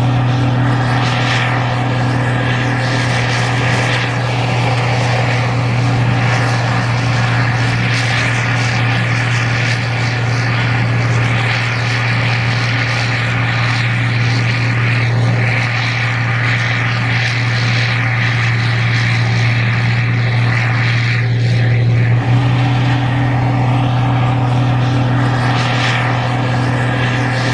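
Gleaner R52 combine running steadily while harvesting corn: a loud, even engine drone with a deep steady hum and a constant hiss of machinery above it.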